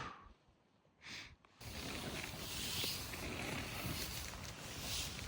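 Two short breathy exhalations, then a steady rushing noise that starts abruptly about a second and a half in and carries on.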